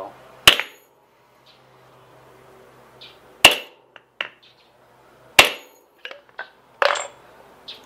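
Hammer blows on a plastic seal driver, pressing a pinion bearing onto a Ford 8.8 differential pinion: four sharp strikes a second and a half to two seconds apart, with lighter taps between them. The bearing is moving down the pinion under the blows.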